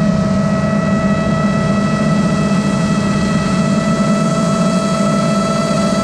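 Custom FPV quadcopter's motors and propellers whining steadily at an even pitch, heard from the GoPro riding on the quad itself, over a low rushing drone.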